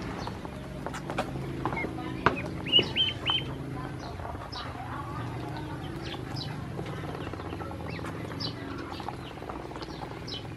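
Ducklings peeping: a steady stream of short, high, falling chirps, with three louder peeps in quick succession about three seconds in.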